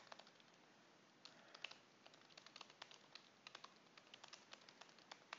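Faint, irregular clicking of typing on a computer keyboard.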